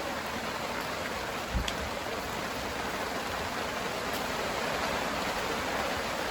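Steady rain falling, an even hiss throughout, with one brief low knock about a second and a half in.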